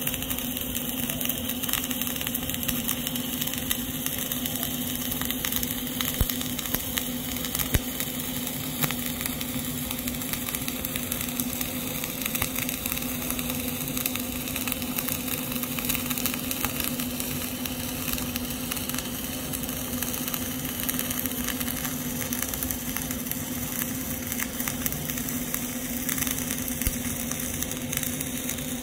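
Flux-cored arc welding with CO2 shielding gas, running a cap pass on a horizontal (2G) groove joint: the arc burns continuously with a steady crackling hiss and frequent sharp spatter crackles over a steady low hum.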